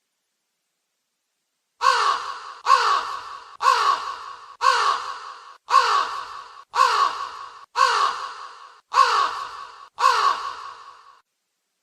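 Crow cawing: nine harsh caws about one a second, starting about two seconds in, each beginning sharply and fading away.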